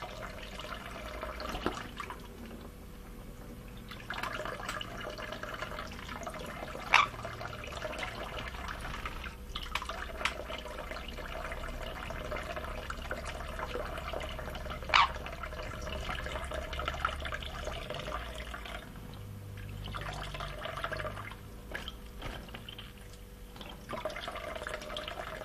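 Water running from a tap and splashing over a sun conure bathing under the stream, a steady rush with a couple of brief sharp sounds standing out.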